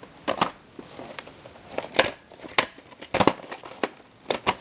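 A series of sharp plastic clicks and crinkles, handling noise from a VHS cassette and its case, in irregular pairs spread over a few seconds.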